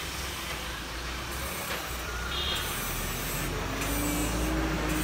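Street traffic noise: a steady low rumble of vehicle engines with general street hubbub. Near the end a passing engine's tone rises and falls, and a brief high chirp sounds about two seconds in.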